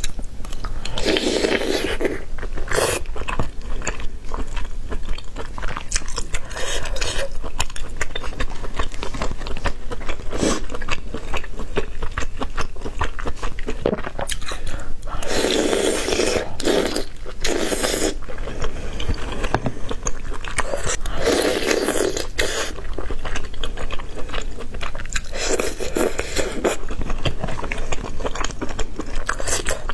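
Close-miked eating: continuous chewing and biting of food, with several louder stretches of a second or two each.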